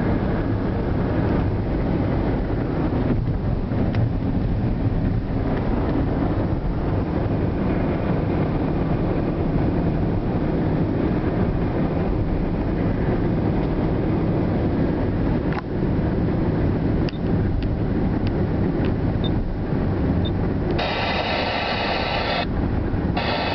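Steady road and wind noise inside a car cruising at motorway speed, a constant low rumble of tyres on the road. Near the end a brief, brighter sound with a held tone cuts in and stops.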